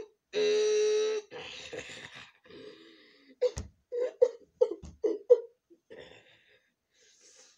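A boy crying: one long, loud wail about half a second in, then ragged breathing and a run of short, choked sobs, with two dull thumps among the sobs.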